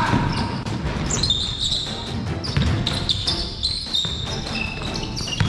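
Basketball bouncing on a sports hall floor, with repeated knocks and short high squeaks of sneakers on the court.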